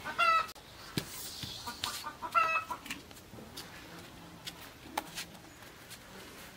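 A chicken clucking in two short bouts of quick repeated notes, one at the start and one about two and a half seconds in, with a few sharp clicks or knocks in between.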